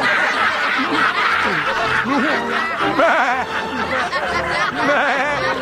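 Several voices snickering and laughing over music.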